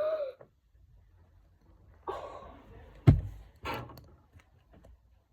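Handling noise: a brief rustle, then one sharp thud on a hard surface about three seconds in.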